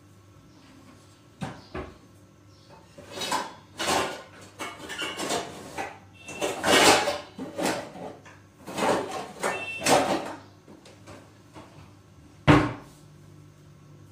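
Kitchen clatter: a run of irregular knocks and rattles, as of dishes and utensils being handled, then one sharp bang about twelve and a half seconds in.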